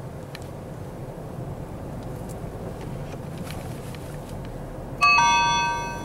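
Car driving, with a steady low hum of engine and road noise in the cabin. About five seconds in, a sudden bright two-note chime rings out and fades over about a second; it is the loudest thing heard.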